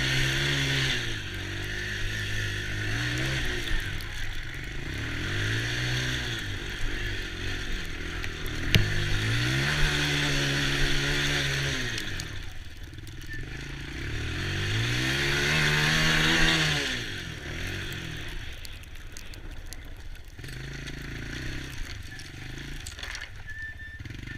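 Small ATV engine accelerating and easing off again and again, its pitch climbing with each burst of throttle, with a steady hiss underneath.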